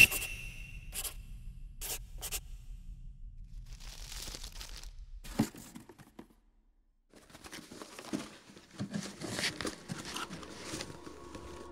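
Paper and cardboard being handled: a few light taps and a rustle. After a brief silence comes a rough, long tearing and scraping as a blade slits corrugated cardboard.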